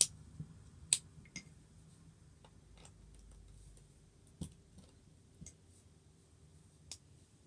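Plastic Lego bricks clicking against each other as they are picked up and sorted by hand, a scattered run of about seven sharp clicks, the loudest at the very start and about a second in.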